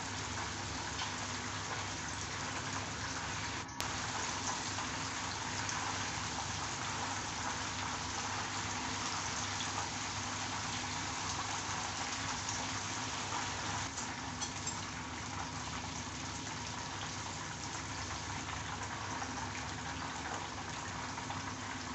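Flour-coated chicken drumsticks deep-frying in hot oil in a pan, a steady sizzle and bubbling.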